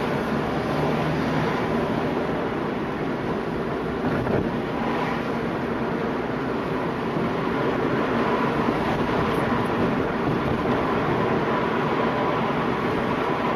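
Steady engine and road noise heard from inside a car's cabin as it drives along a city street.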